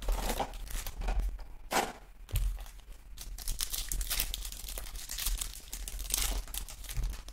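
Foil trading-card packs crinkling and being torn open by hand, a string of short crackles and rips.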